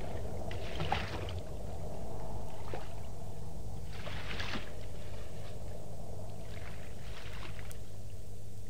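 Sea sound effect: water lapping and washing against a boat's hull, a soft wash swelling about every three seconds, over a steady low rumble.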